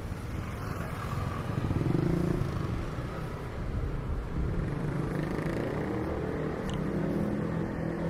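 Street traffic: motorbikes and cars running past, loudest about two seconds in.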